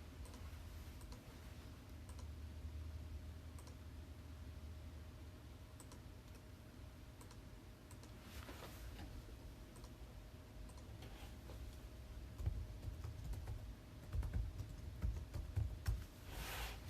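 Faint, scattered clicks of a computer keyboard and mouse over a low steady hum, with a few soft low bumps near the end.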